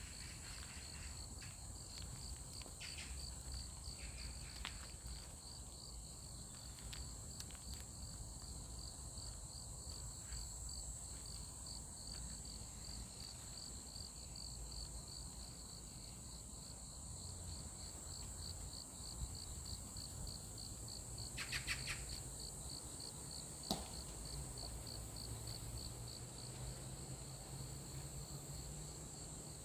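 Insects, crickets or the like, trilling steadily: an evenly pulsing high chirp with a higher continuous buzz above it. A short burst of chirping about three-quarters of the way through, and a single sharp click a couple of seconds later.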